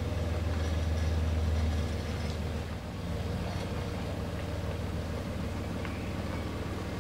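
Low, steady engine of the vehicle towing a sailboat on a wheeled trailer, easing off slightly about two seconds in, with a few faint clicks and knocks.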